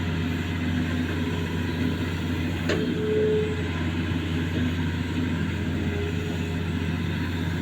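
Hitachi Zaxis 210F excavator's diesel engine running steadily, with a single knock about two and a half seconds in and a brief whine just after it.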